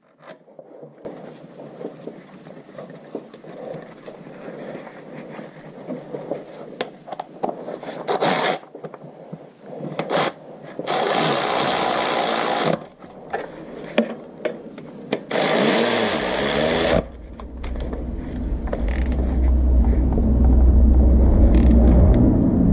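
Clattering and scraping of hand tools, then two loud bursts of a power tool of about two seconds each. From about two-thirds of the way through, a car engine's low rumble comes in and grows louder.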